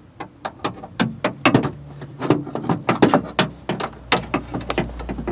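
Irregular clinking and knocking of hard tools and metal parts being handled, several sharp clicks a second, during work on a car door.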